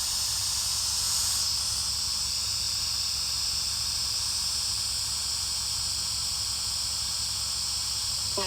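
Steady hiss with a low rumble underneath, unchanging throughout.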